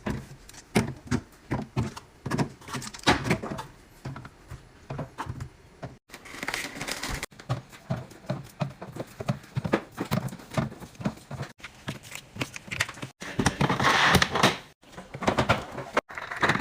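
Drink bottles and cans set down one after another on fridge shelves, a quick run of knocks and clinks. A short rustling hiss comes near the end.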